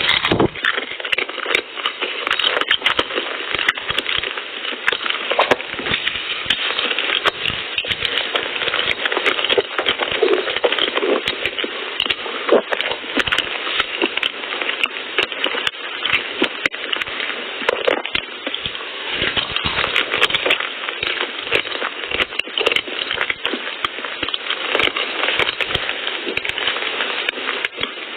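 Close-miked eating sounds: a dense, continuous crackle of many small clicks and smacks from chewing and handling soft cream-filled pastries.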